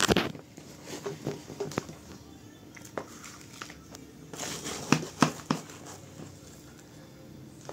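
Gritty potting mix being scooped with a plastic scoop from a plastic tub and tipped into a plastic pot around a succulent: scraping and rustling of soil grains, with a few sharp clicks of grit and scoop on plastic, the loudest about five seconds in.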